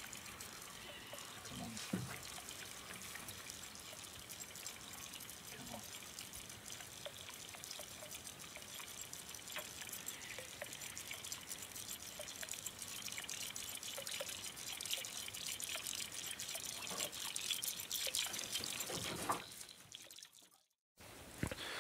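Faint water dripping and trickling with many small clicks, growing a little busier and then fading out about two seconds before the end.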